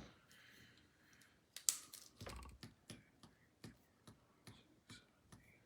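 Light clicks and taps, about one or two a second, with one sharper click about one and a half seconds in.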